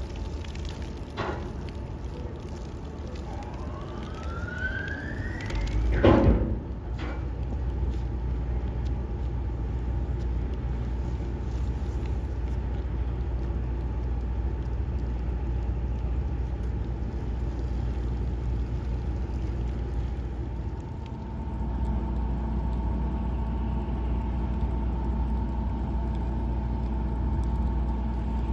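Low, steady rumble of a cruise ship's engines and machinery at the quay. A whine rises in pitch over about two seconds, then a short loud knock comes about six seconds in. From about twenty-one seconds a steady hum with several fixed tones joins the rumble.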